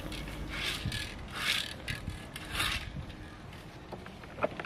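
Lawn rake scraping through cut grass in three short strokes about a second apart, followed by a few sharp clicks near the end.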